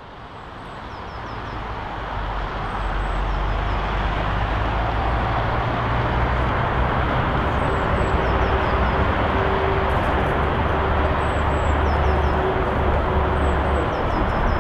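Outdoor ambience fading in over the first couple of seconds: a steady rumble and hiss of road traffic, with small birds chirping faintly and briefly every second or two above it.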